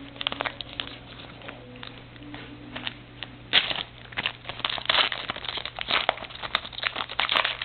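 Crinkling and crackling of a trading-card pack's wrapper being handled and torn open, heavier from about halfway through.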